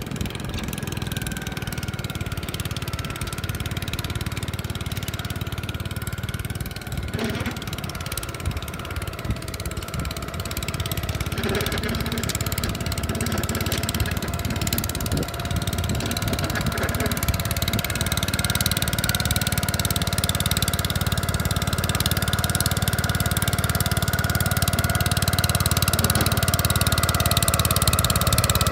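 Gravely 5665 tractor engine running steadily with an MA210 snow cannon attached, a high steady whine over the engine's drone, getting gradually louder through the second half.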